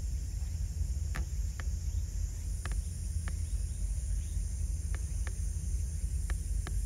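Outdoor ambience: a steady low rumble under a thin, steady high hiss, with about eight short, sharp clicks scattered through it.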